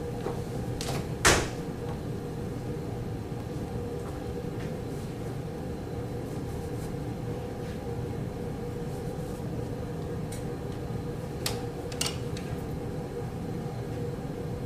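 Steady low background hum broken by a few sharp clicks, the loudest about a second in and two fainter ones near the end.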